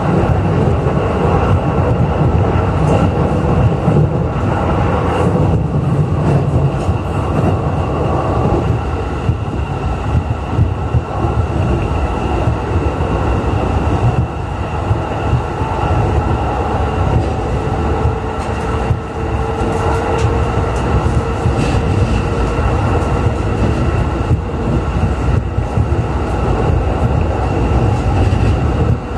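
JR East E531 series electric train running at speed, heard from inside the passenger car: a steady loud rumble of the wheels on the rails and the car's running noise.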